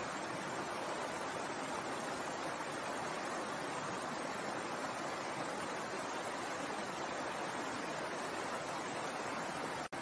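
Shallow stream flowing and splashing over rocks in a steady, unbroken rush, cutting out for an instant near the end.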